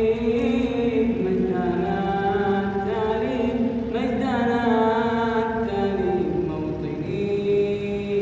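A young man's voice chanting a nasheed, holding long notes that slide slowly from one pitch to the next.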